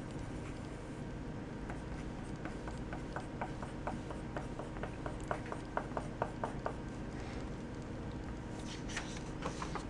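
Mechanical pencil with 0.9 mm lead writing on paper: a run of short scratching strokes, two or three a second, from about a second and a half in to about seven seconds in, then a brief scratchy rustle near the end.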